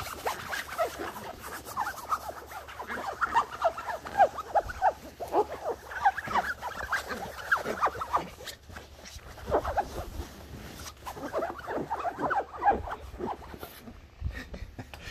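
Shetland sheepdog puppy giving a run of short, high squeaky whines and yips, several a second, with a few brief pauses, as it scrambles over and bites at a padded seat in excited play.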